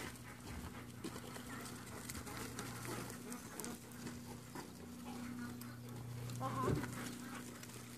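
Goats and a herding dog moving around on dirt, with light scattered footfalls over a steady low hum, and one short animal call about seven seconds in.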